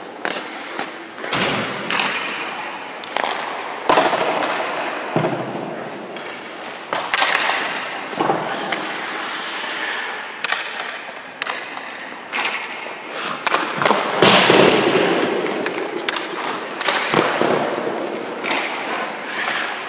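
Hockey pucks and sticks on ice around a goaltender: irregular sharp thuds and cracks as pucks strike pads, net and boards, with skate blades scraping across the ice between them. Each hit rings on briefly in the echoing rink.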